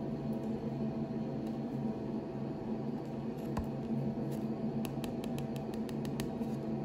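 Steady mechanical hum of a bathroom extractor fan, with a quick run of light clicks in the second half from fingers handling a plastic tooth shade guide card.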